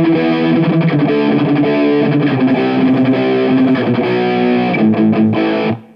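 Electric guitar played through a Sondery Distortion pedal into a Marshall amp and cabinet: a run of held, distorted chords and notes that stops shortly before the end.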